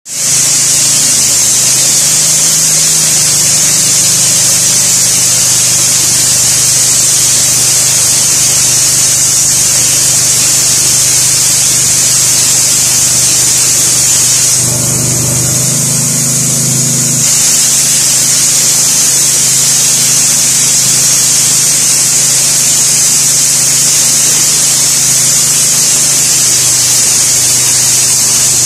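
Hopper spray gun blasting anti-condensation coating: a loud, steady hiss of compressed air over a low hum. The hiss stops for a couple of seconds around halfway, leaving the hum louder, then resumes.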